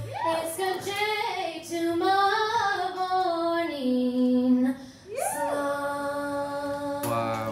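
A woman singing a traditional Irish song in long, held notes. There is a short break about five seconds in, and then a new phrase begins.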